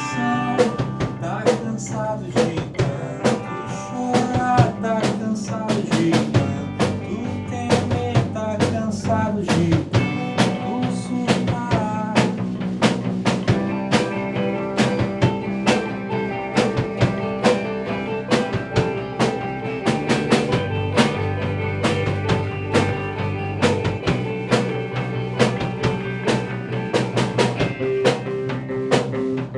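Instrumental passage of a rock band: drum kit keeping a steady beat with rimshots and bass drum, under bass and sustained pitched instruments, with no singing.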